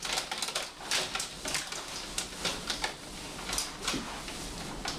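Irregular crackling and rustling of a paper bag pushed against a wall, with a folding camp cot's fabric and frame shifting under a person's weight, about a dozen short crackles in five seconds.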